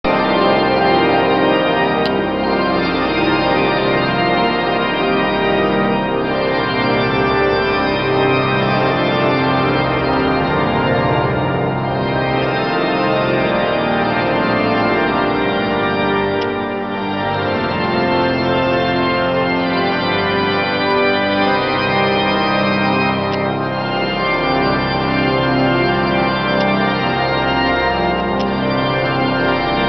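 Pipe organ playing loud sustained chords, the full sound changing chord every second or two with a short dip near the middle.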